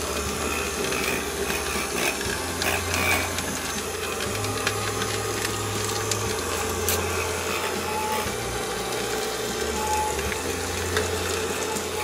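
Small battery-powered DC motor and fan of a homemade PET-bottle desk vacuum whirring steadily, with small bits of debris ticking and rattling as they are sucked up the corrugated hose.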